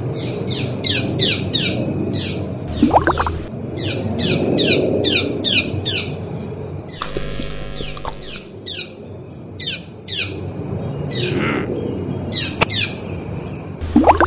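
Small bird chirping in a quick series of short falling notes, several a second, over a low rumble. About three seconds in there is a rising glide, and around seven seconds a short steady tone.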